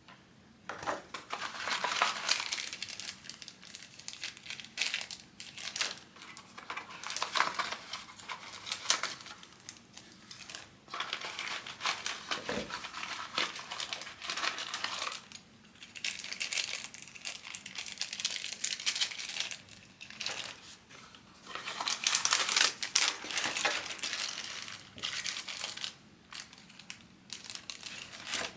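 Packaging being handled: plastic wrapping crinkling and rustling in irregular bursts that come and go.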